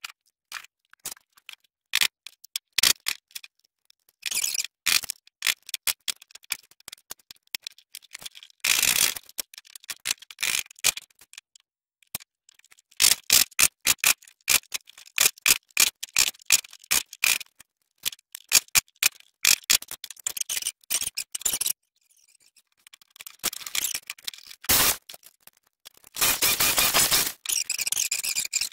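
Steel hammer striking a wood chisel, chopping waste out of a softwood block: many sharp knocks, sometimes single and sometimes in quick runs, with short pauses between.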